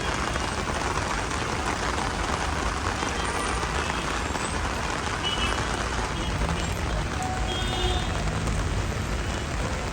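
Heavy rain on a city street with traffic passing over the wet road, a steady dense hiss with a few short faint tones in the second half.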